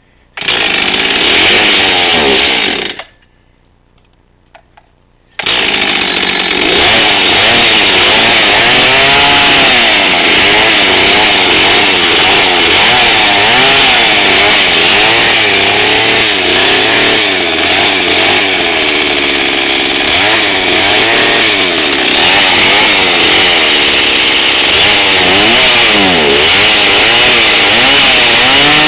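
Husqvarna Rancher 61 cc two-stroke chainsaw fires and runs for about two and a half seconds, dies, then starts again about five seconds in and keeps running, revving up and down. It runs only with the choke partly out, which the owner takes for a fuel-system fault, perhaps a soft fuel line.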